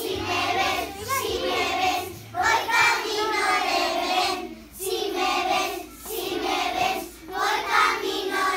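A class of young children singing together in unison, in short phrases with brief breaks between them.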